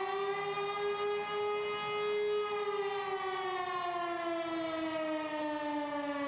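Air-raid siren wailing, sounding a warning of air attack. Its pitch rises a little over the first two seconds, then slowly falls.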